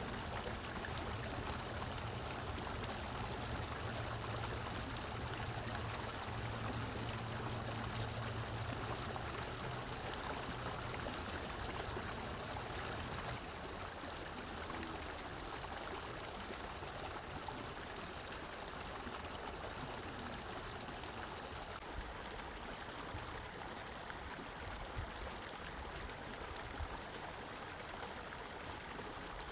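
Steady rushing of flowing river water: an even hiss with no distinct events. A low hum sits underneath for about the first twelve seconds.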